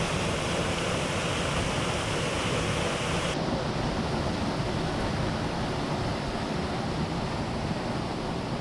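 A small waterfall pouring into a creek pool: steady rushing, splashing water. About three seconds in it cuts to a duller, softer steady rushing noise.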